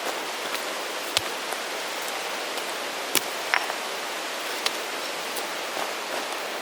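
Steady, even hiss of water, with a few sharp clicks and taps scattered through it; the two strongest come about a second in and about three seconds in.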